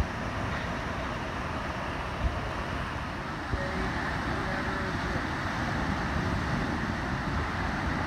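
Small waves breaking and washing up on a sandy beach: a steady rushing noise with a low rumble underneath.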